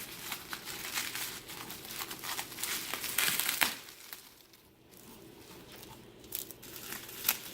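Packing wrap being crinkled and pulled off a boxed Funko Pop by hand, in irregular crackles. It is loudest about three seconds in, eases off for a couple of seconds, then starts again.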